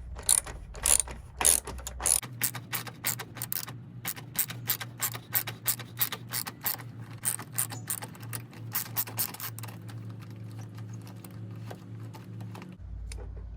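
Socket ratchet clicking steadily, several clicks a second, as it loosens the battery hold-down bracket bolt; the clicking stops near the end.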